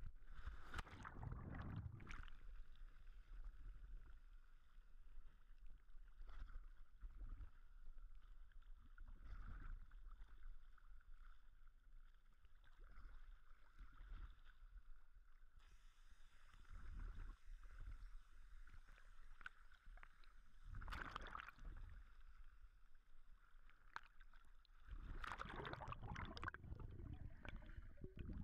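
Muffled sea water sloshing and gurgling against a waterproof camera housing bobbing at the surface, in uneven surges, louder near the end as the camera goes under.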